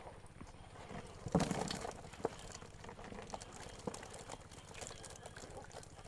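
Live catfish and water tipped from a scoop net into a plastic bucket with a splash about a second and a half in, followed by scattered small knocks and slaps as the fish flap inside the bucket.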